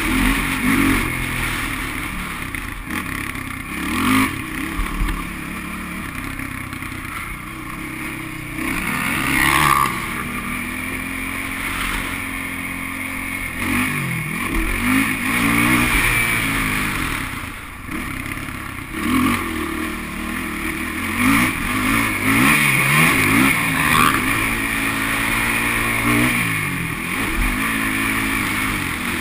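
Sport quad ATV's engine, ridden hard: it revs up and falls off again and again as the throttle is opened and closed.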